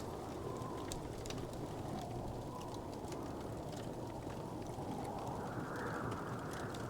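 Wood fire crackling, with scattered small pops and clicks over a steady low rumble.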